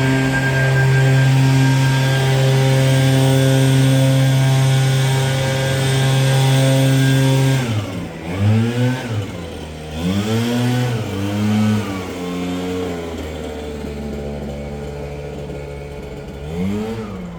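Petrol leaf blower engine held at full throttle, then let off to idle about eight seconds in. It revs up and down in several quick blips, settles at idle, and revs briefly once more near the end.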